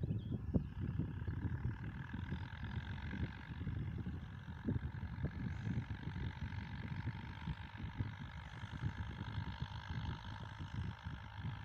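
Wind buffeting the microphone in uneven gusts, over the faint steady running of a distant Steyr 8073 tractor engine pulling a plough.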